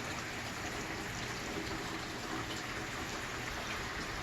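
Steady rain falling in a thunderstorm, an even hiss.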